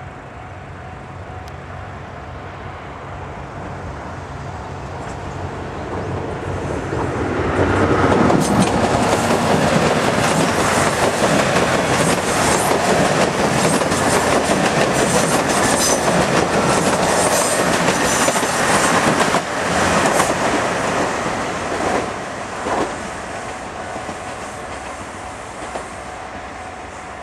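Limited express Hamakaze, a KiHa 189 series diesel multiple unit, passing a level crossing. Its sound builds over several seconds, runs loud with wheels clacking over the rail joints for about twelve seconds, then fades away.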